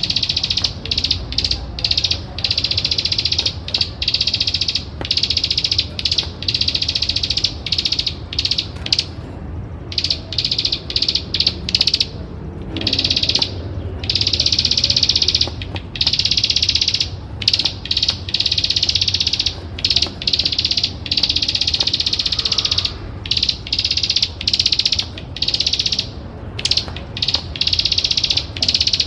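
Plain prinia (ciblek sawah) giving its rapid clicking 'klik-klik' trill, repeated in bouts about a second long with short breaks between them.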